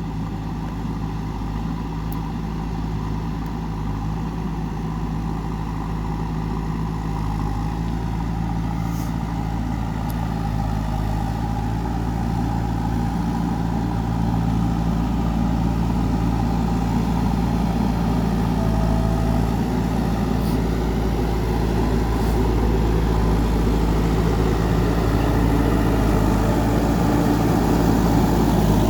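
JCB 3DX backhoe loader's diesel engine running steadily, growing gradually louder.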